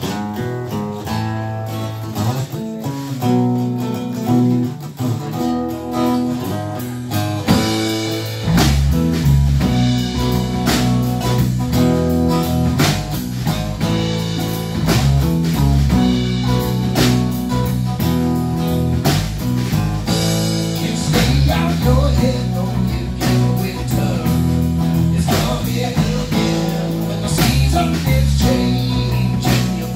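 Live rock band playing: an acoustic guitar picks an opening riff alone, then about eight seconds in the bass guitar and drum kit come in and the full band plays a steady groove.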